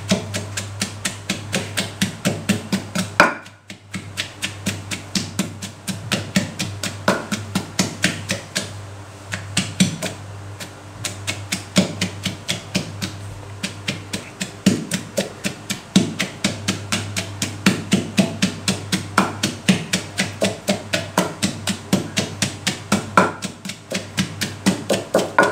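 Wooden pestle pounding chillies, shallots and garlic in a clay mortar, steady strokes about three to four a second, with a short break a little over three seconds in.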